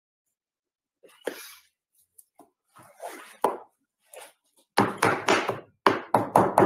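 Knife chopping raw meat on a wooden cutting board: a few scattered knocks, then from about five seconds in a fast run of hard chops, about four or five a second.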